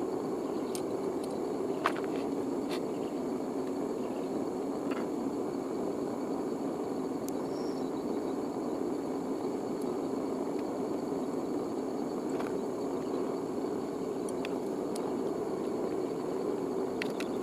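Small metal-melting furnace running steadily with a constant low rushing noise from its burner while cans melt in the crucible, with a few faint ticks and clicks over it, the sharpest about two seconds in.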